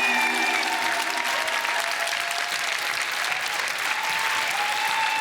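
Studio audience applauding steadily, with the last held notes of the music dying away in the first half-second.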